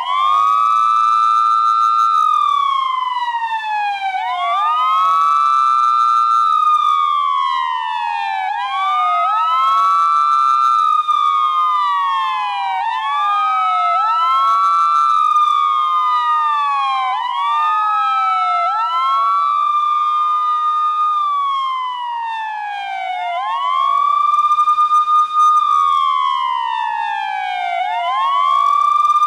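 Police siren wailing: two siren tones out of step with each other, each rising quickly, holding briefly, then sliding slowly back down, over and over.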